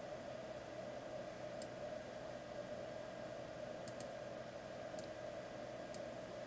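A few faint, sharp clicks of a computer mouse and keyboard, irregularly spaced, over a steady background hiss of room noise.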